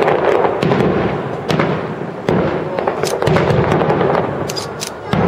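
Fireworks display: about five booms in quick succession, each dying away over about a second, with crackling from the bursts between them.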